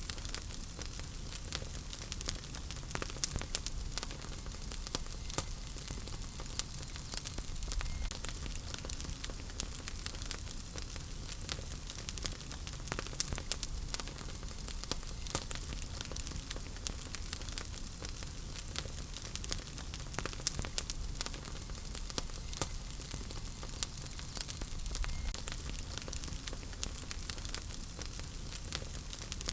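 Wood fire burning in a fireplace, with a steady low rumble and hiss under frequent sharp crackles and pops.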